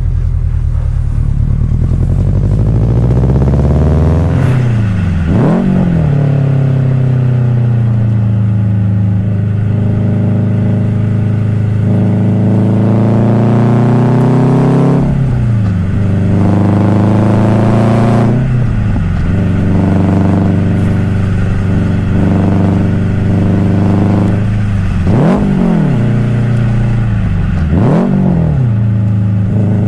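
Subaru WRX STI's turbocharged flat-four boxer engine running hard through the gears, its pitch climbing and falling. Five quick swoops in pitch mark gear changes, the first about five seconds in and the last near the end.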